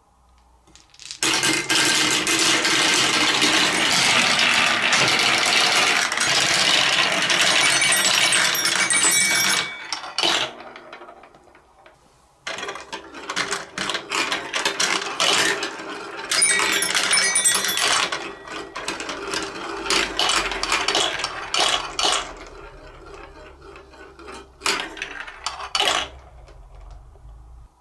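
A handful of small plastic balls clattering and rolling down the plastic tracks of a block marble run, in two dense waves, then thinning to scattered single clicks as the last balls run out near the end.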